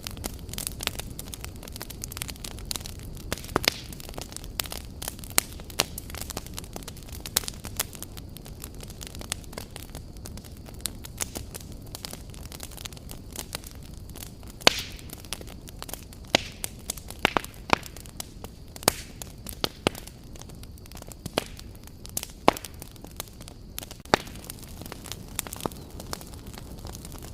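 Wood fire burning, with a low steady rumble and frequent sharp, irregular crackles and pops; one pop stands out loudest about halfway through.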